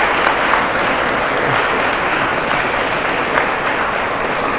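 A crowd of guests applauding steadily.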